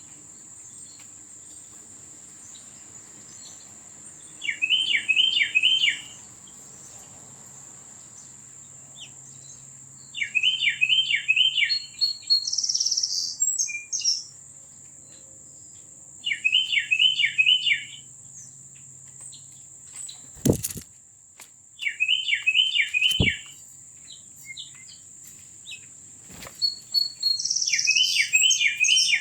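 A songbird singing a short phrase of four or five quick, bouncing notes, repeated about every six seconds, over a steady high-pitched whine. Two sharp clicks come a little past the middle.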